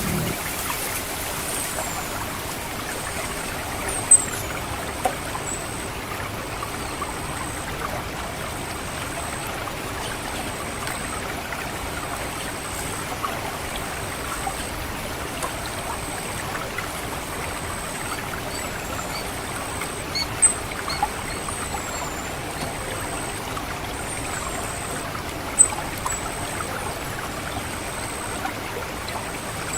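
Water trickling and gurgling steadily through a rice paddy, with thin, very high-pitched orange-headed thrush 'ngecit' call notes repeated at a regular pace and a few sharp, downward-slurred high chips. A few brief sharp clicks stand out above the water.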